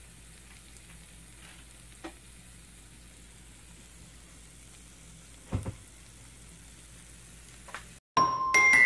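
Melted cheese and chicken tenders sizzling faintly on the cooling plates of a George Foreman grill, as a steady soft hiss, with a small click about two seconds in and a short knock past halfway. Near the end, bright bell-like notes of music start and are the loudest sound.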